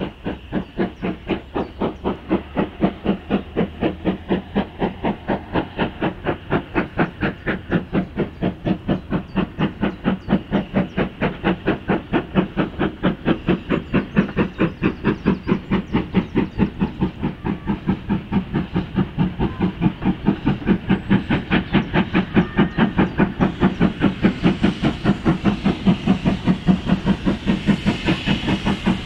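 Preserved British steam locomotive hauling a goods train, its exhaust chuffing in a steady rhythm of about four beats a second. The beats grow louder, with more hiss near the end, as it comes closer.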